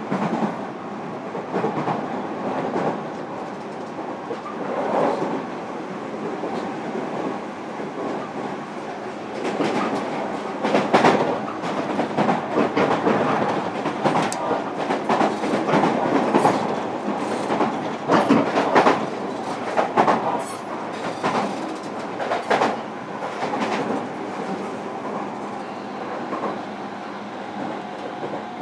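Interior running sound of a JR Kyushu 305 series electric train at speed, heard inside a motor car: a steady rumble with repeated clicks of the wheels over rail joints, most frequent in the middle of the stretch.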